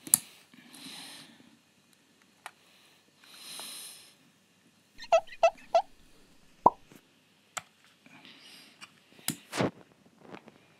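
Small clicks and snaps from the plastic body and bogies of a model railcar being worked apart by hand, with a quick run of three clicks around the middle and soft rustling between.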